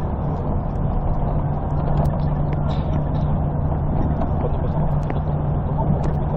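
Steady engine and road noise of a moving road vehicle heard from inside the cabin, with a constant low drone and a few light clicks.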